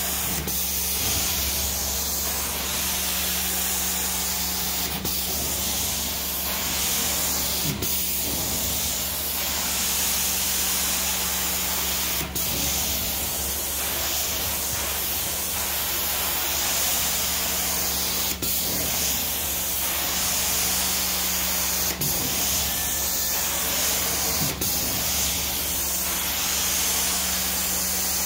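Carpet-cleaning extraction wand spraying and sucking water through its head on carpet: a steady loud hiss of spray and suction over a constant low machine hum. Occasional sharp clicks break in every few seconds.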